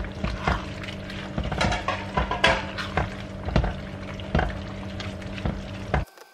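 Silicone spatula stirring leafy greens through thickened broth in a stainless steel frying pan, with irregular knocks and scrapes against the pan over a steady low hum. It cuts off abruptly about six seconds in.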